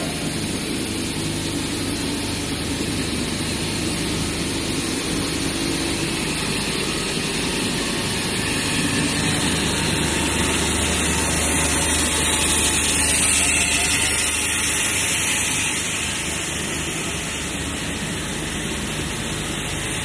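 LAN cable extrusion line running in the factory: a steady machinery hum with a high hiss, a little louder for a few seconds around the middle.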